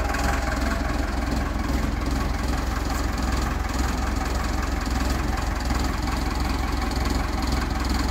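Forklift engine idling steadily.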